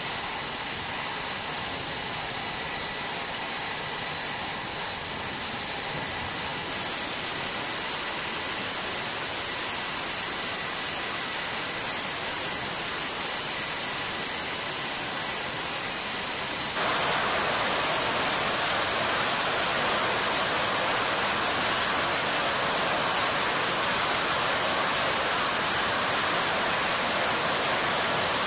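Jet engines of F/A-18 Super Hornets running on deck: a steady rush of jet noise with a high, steady whine. A little over halfway through, the sound changes abruptly to a louder, fuller rush without the whine.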